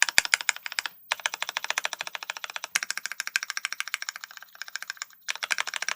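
Fast typing on a Keycult No.2 TKL aluminium custom mechanical keyboard with lubed Cherry MX2A Black linear switches, built with no foam for a clacky sound: a quick, steady run of keystrokes, with a short pause about a second in and another a little after five seconds.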